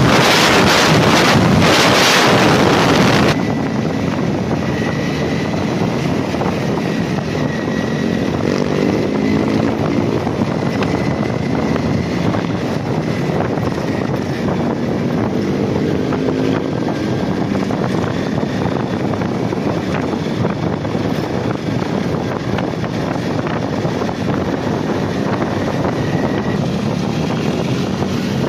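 Honda CBR250R single-cylinder engine running under way, heard under heavy wind rush on the microphone. The wind is loudest for the first three seconds, then cuts to steadier road and wind noise in which the engine rises in pitch twice as it accelerates.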